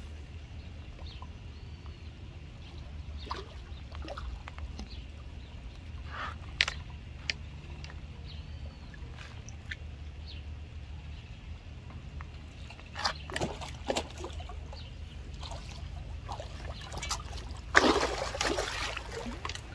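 Hooked tambaqui splashing at the water surface while being fought on rod and reel, with a few scattered splashes and a longer, louder splash near the end as it comes in close, over a steady low hum.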